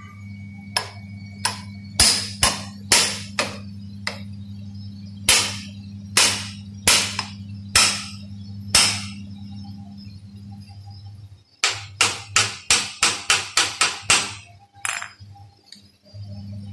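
Hammer striking steel in a machine shop: a dozen sharp, ringing metallic blows at an uneven pace, then a quick run of about ten blows near the end. A steady low hum runs beneath and drops out about two-thirds of the way through.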